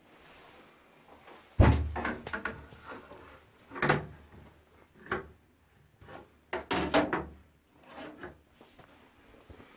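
A string of knocks and clatters from parts being handled and set down while a wall-mounted air conditioner is taken apart. The loudest is a single thump about a second and a half in, followed by several shorter clattering knocks.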